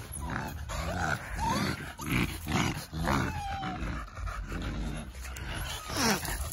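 Micro exotic bully puppies whimpering and squealing, with many short cries that slide up and down in pitch.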